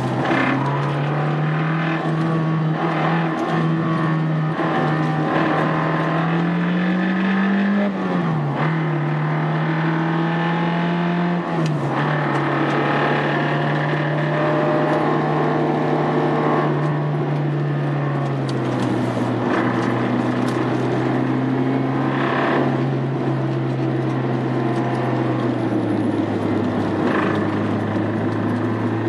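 Honda Integra Type R engine running at moderate revs with no hard acceleration; its pitch wavers early on, then drops in steps about 12, 18 and 26 seconds in. The engine has developed an abnormal noise (異音) and has failed for the day.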